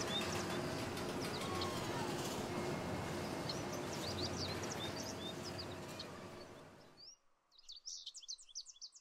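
Birds chirping over a steady outdoor background noise; the background cuts off abruptly about seven seconds in, leaving a quick run of high bird chirps on their own near the end.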